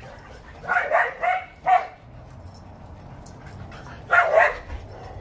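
Shetland sheepdog barking loudly as she runs in play: a quick string of three barks about a second in, then another bark near the end. It is excited play barking.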